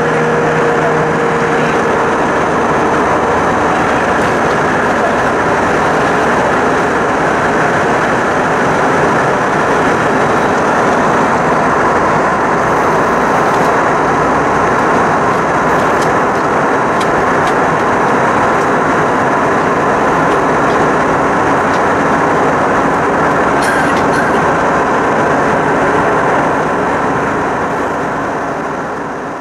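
Airbus A320's IAE V2500 turbofan engine and airflow, a steady roar inside the cabin during the climb. It fades out near the end.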